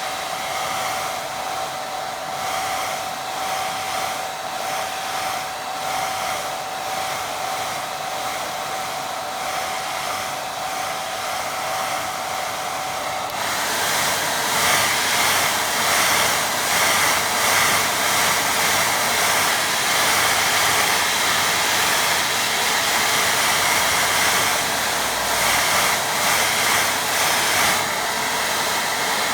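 Hair dryer blowing steadily to dry a wet watercolour painting. A faint steady whine in it stops about 13 seconds in, and from there the blowing is louder.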